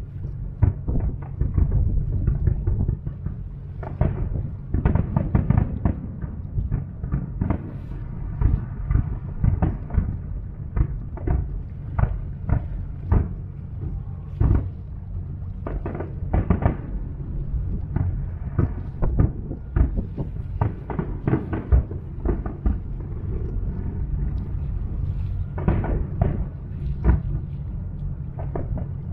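Aerial fireworks display: shells bursting in a dense, irregular series of booms and crackles, at times several a second.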